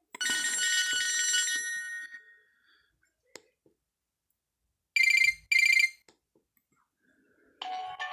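Nokia E5-00 ringtones playing one after another. A chiming tune sounds for about two seconds and fades. A little after halfway come two short, loud electronic rings about half a second apart, and near the end another ringtone begins.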